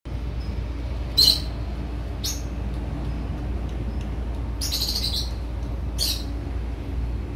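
A bird calling in short, high chirps, about five times, the first, about a second in, the loudest, over a steady low rumble.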